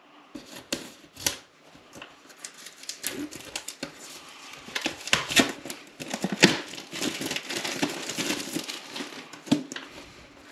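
Clear plastic film being slit with a knife and peeled off a small cardboard box, a run of crinkling and crackling that is busiest and loudest through the middle.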